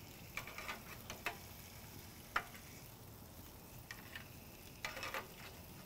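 Beef short ribs sizzling faintly on hot grill grates as their fat renders, with a handful of short clicks and scrapes from metal tongs as the racks are turned fat-cap down.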